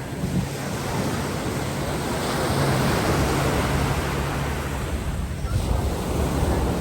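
Steady rushing noise of surf and wind on the microphone, with a low hum underneath.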